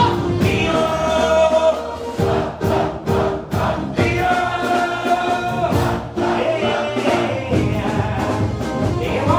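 Loud live music through PA speakers: a male singer on a microphone, with many voices joining in over a steady beat, holding two long notes, about a second in and again around the middle.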